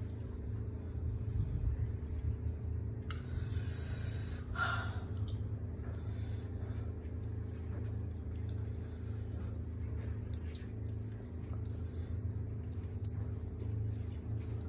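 Eating sounds from a man with a plate of boiled octopus in spicy chili sauce: two loud hissing breaths about three to five seconds in, then small wet ticks and drips as the tentacles are lifted out of the sauce, over a steady low hum.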